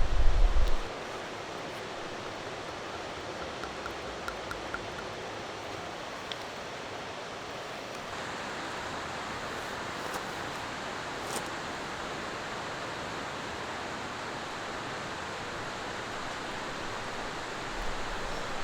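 Mountain valley stream rushing steadily over rocks, an even wash of water noise. It opens with a brief low rumble.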